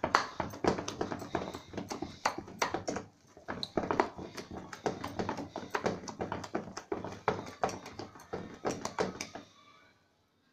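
Spoon beating thick cream in a steel pot, rapid uneven clacking against the pot's sides as the cream is churned by hand into butter. The clacking stops about nine seconds in.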